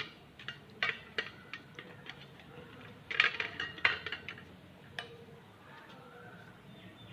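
Irregular light clinks and taps of a utensil against a dish while fish pieces are being coated with a thick masala marinade, with a cluster of quicker taps about three seconds in.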